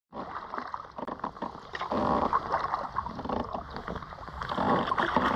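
Kayak being paddled: irregular splashing of the paddle and water lapping against the hull, louder about two seconds in and again near the end.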